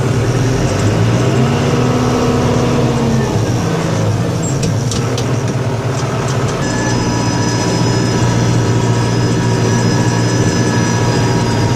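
Truck engine running steadily under load. A steady higher whine joins about seven seconds in.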